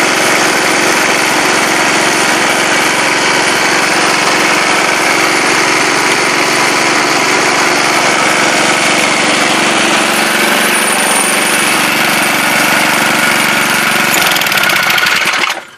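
Small single-cylinder Tecumseh lawn mower engine, about 3 hp, running steadily at speed while belt-driving a GM CS130D alternator as a homemade 12-volt generator, with a 100-watt incandescent bulb as its load. The sound stops abruptly near the end.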